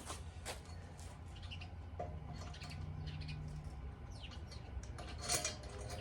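Faint clicks and squeaks of a quick-adjust bar clamp being worked and set on a steel bracket, over a low steady hum.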